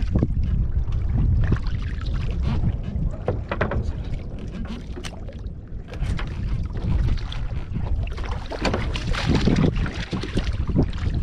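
Wind rumbling on the microphone over water lapping against a wooden boat's hull, with scattered short knocks and thuds from the boat's planks as a large catfish is handled.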